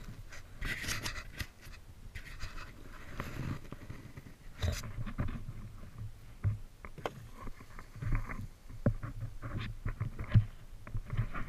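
Irregular crunching and scraping on packed snow, from footsteps and an orange plastic sled being handled and dragged nearby. A sharper knock comes near the end.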